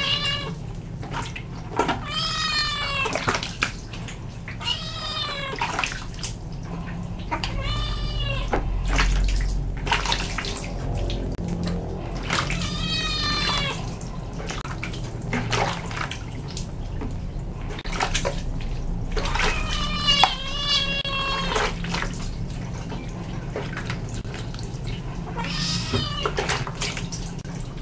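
Wet kitten yowling in distress while being bathed: about eight long, drawn-out meows that rise and fall in pitch, a few seconds apart, with water splashing as hands wash it.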